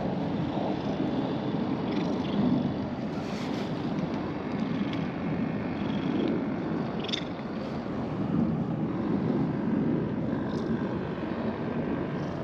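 Wind buffeting the microphone: a steady, wavering low rushing noise, with a few faint short ticks.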